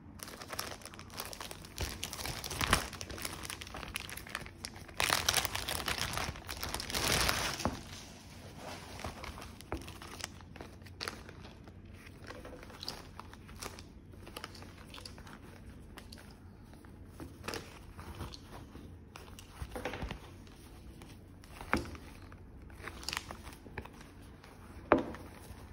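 Clear plastic packaging bag crinkling as it is pulled off and handled. The crinkling is loudest and densest over the first several seconds, then settles into lighter rustling with a few sharp crackles.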